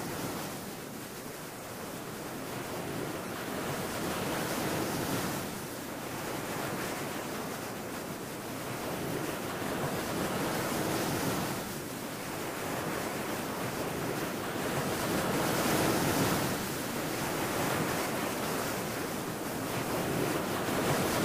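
Ocean surf: waves breaking and washing up a beach, the rush swelling and fading about every five seconds.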